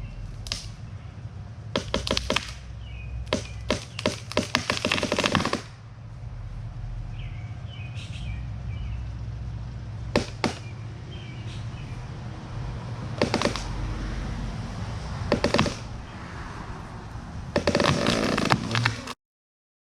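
Felled maple's wood cracking and the trunk and limbs thudding down: a run of sharp cracks a few seconds in, single knocks later, and a dense burst of crashing near the end, with small birds chirping faintly.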